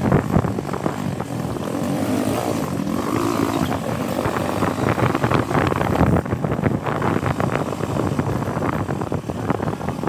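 Vehicle engine running steadily while driving along a bumpy dirt road, with rattles and knocks from the rough surface.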